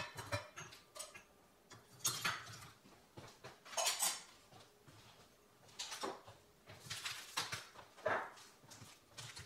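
Scattered light clinks and knocks of kitchenware being picked up and put away, among them a stand mixer's metal paddle attachment and bowl.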